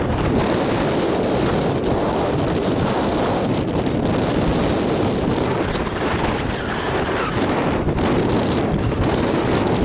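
Wind buffeting the microphone: a loud, steady rush of noise, heaviest in the low end.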